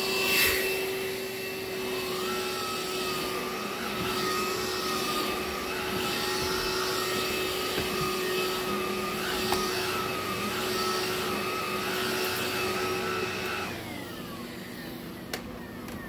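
Cordless stick vacuum running over carpet with a steady motor whine. It is switched off about 14 seconds in, and the whine falls away as the motor winds down.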